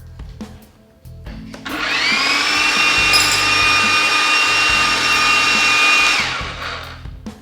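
Hilti TE 1500-AVR electric breaker (jackhammer) switched on: its motor winds up with a rising whine about a second and a half in, runs steadily and loudly for about four seconds, then winds down near the end.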